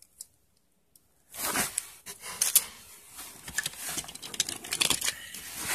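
Clear plastic bag crinkling and rustling as it is handled and opened, with small clicks and knocks from the diecast toy cars inside; it starts about a second in after a brief quiet.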